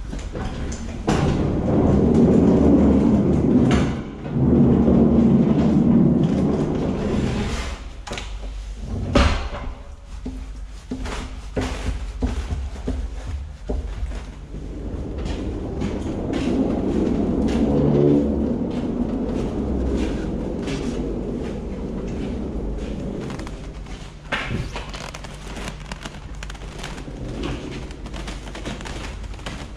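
Manual pallet jack pulling a loaded pallet across a truck trailer's metal floor: the wheels rumble and rattle in two long stretches, with many clicks and knocks from the jack and the pallet throughout and one sharp knock about nine seconds in.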